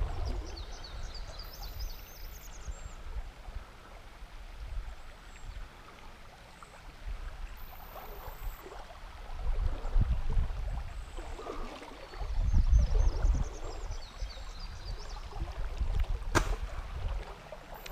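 River current flowing and lapping, with uneven low rumbles, louder about two-thirds through. A songbird sings a short, high, stepped phrase near the start and again about two-thirds through, and there is one sharp click near the end.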